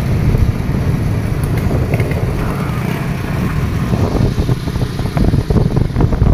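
Small four-stroke Honda Supra motorcycle engine running at steady road speed, pulling a homemade three-wheeled cargo cart, with wind rushing over the microphone. The sound gets rougher and more uneven in the second half.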